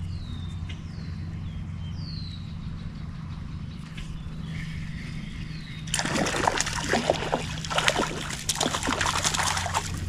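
Water splashing and sloshing, starting suddenly about six seconds in and going on in irregular bursts.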